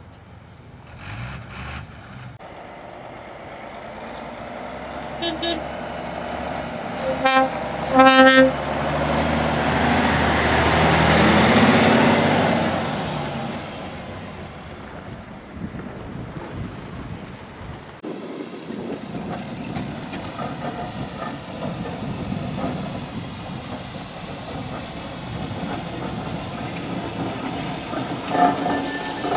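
Heavy lorry sounding its horn in three short blasts, then its diesel engine rising as it pulls away past and fading off. Later, a steam road locomotive running with a steady hiss as it moves off.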